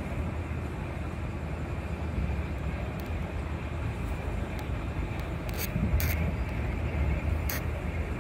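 Rajdhani Express train running at speed: a steady rumble of the wheels on the rails, with a few sharp clicks in the second half.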